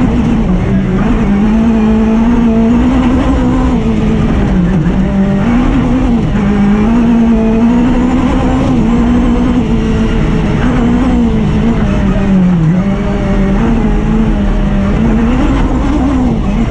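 Suzuki Hayabusa inline-four motorcycle engine of a rally buggy, heard loud from inside the cockpit, running hard at high revs under load, its pitch dipping briefly a few times and climbing again.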